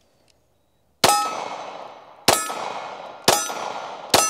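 Four pistol shots from a Glock, fired about a second apart, each trailing off over about a second.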